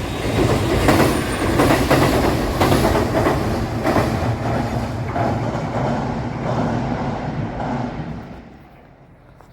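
A Suigun Line diesel train passing close by, its wheels clattering over the rail joints with a low engine hum underneath. It fades away about eight and a half seconds in.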